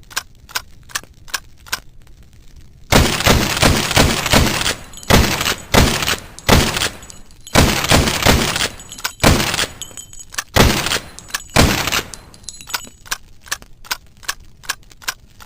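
A lever-action sawed-off rifle fired over and over in quick succession, each sharp shot followed by a loud noisy tail, for about nine seconds. Before and after the shooting a steady ticking runs at about three ticks a second.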